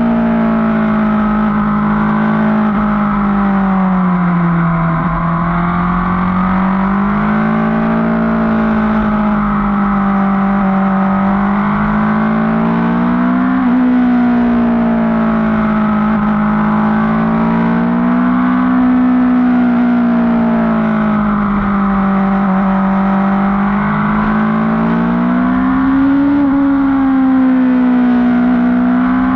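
Motorcycle engine running at cruising speed, its note rising and falling gently several times as the throttle is eased on and off.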